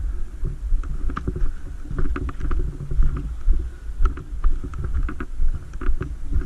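Steady low rumble of wind and movement on the camera microphone, with frequent irregular clicks and taps.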